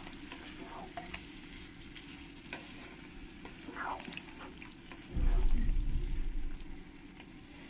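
Spatula stirring green jackfruit and masala with a little added water in a frying pan, with a faint sizzle and light scraping clicks. About five seconds in, a louder low rumble lasts over a second.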